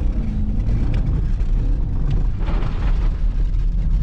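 Car engine running, with a short burst of hiss about two and a half seconds in.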